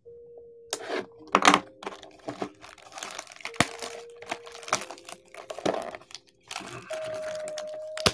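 Plastic wrapping being torn and crumpled off a box of baseball trading cards: irregular crinkling and tearing crackles.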